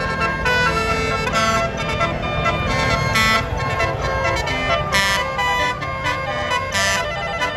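Telolet basuri multi-tone bus horns playing overlapping melodic toots, with a bright hiss about every two seconds.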